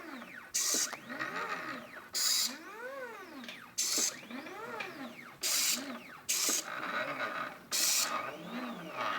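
Stepper motors of a homemade CNC plotter built from old scanner and inkjet-printer parts, driving the axes in short moves. Each move gives a whine that rises and then falls in pitch as it speeds up and slows down. Six short, loud, hissy bursts break in between.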